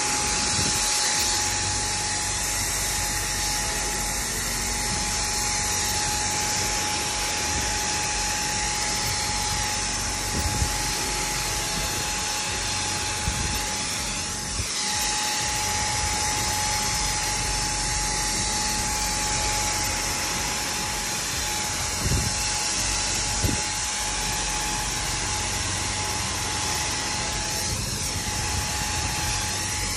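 Handheld electric paint sprayer running steadily, a constant motor whine over the hiss of the liquid wrap coating being atomised onto a car's body panel.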